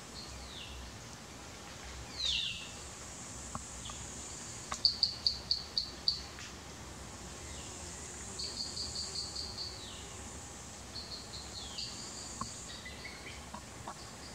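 Forest songbird calling: a couple of down-slurred whistles, then three runs of quick, sharp repeated notes, six to eight notes a run, the loudest run about five seconds in. A steady high hum of insects runs underneath.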